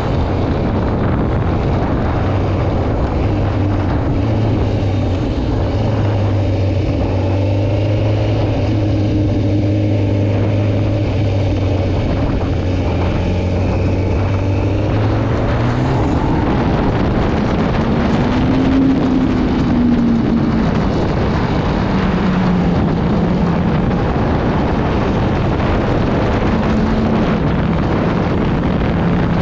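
2008 Kawasaki ZX-10R's inline-four engine running under way, with wind rushing over the microphone. The engine note holds steady for the first half, then rises and falls with the throttle.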